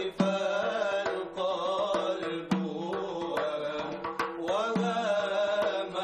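Male chanters singing a devotional mawlid chant (inshad) in long, held, ornamented lines, accompanied by a hand-held frame drum struck a few times.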